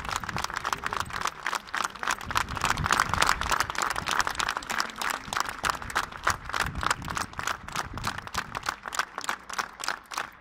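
A small group of people clapping their hands together in a fast, steady rhythm.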